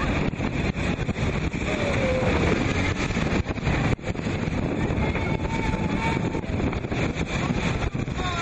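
Motorboat running through river rapids: a steady, loud rush of engine and churning water.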